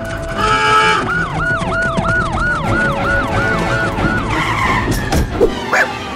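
Siren-like wailing sound effect, a quick rising-and-falling tone repeated about three times a second, which stops about four seconds in.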